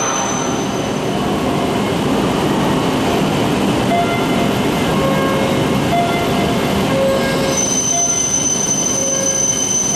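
E5 series Shinkansen pulling out of the station, its cars rolling past the platform as it gathers speed: a loud, steady rushing rumble with short squealing tones coming and going about once a second.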